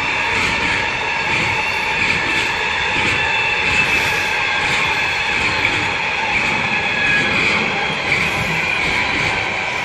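Freight train of wagons carrying semi-trailers rolling steadily past: a continuous rumble of wheels on rail with steady high-pitched ringing tones over it.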